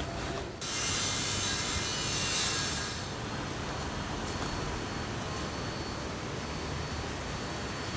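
Steady rushing background noise, hissier for the first couple of seconds and then even, with no distinct events.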